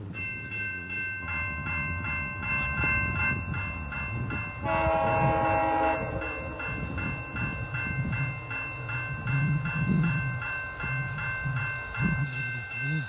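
West Coast Express F59PHI locomotive's bell ringing steadily, about three strikes a second, over the rumble of the train. A horn chord of about a second sounds near the middle and is the loudest part.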